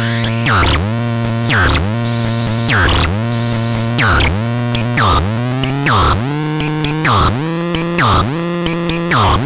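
Manticore Supersonic 24S playing one of its electronic sounds: a steady, buzzy low tone with a swooping sweep that repeats about once a second.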